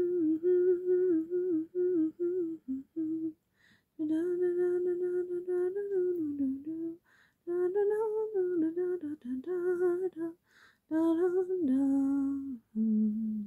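A woman humming a tune to herself, in several held, gently moving phrases with short breaks between them.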